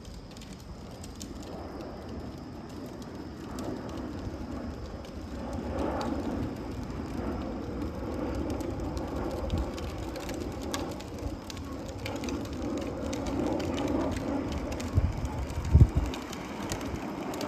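Boeing 737-800's CFM56-7B turbofan engines passing overhead, a steady rushing rumble that grows gradually louder. A couple of low thumps sound near the end.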